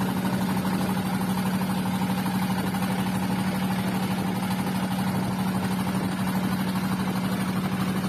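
Engine of a small wooden boat running steadily under way, a constant low drone with a fast, even pulse.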